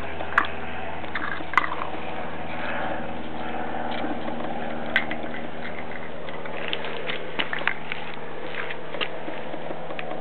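Bernese mountain dog puppy gnawing on a cap soaked in bitter anti-chew spray, with scattered small clicks of teeth on it. He keeps chewing despite the spray.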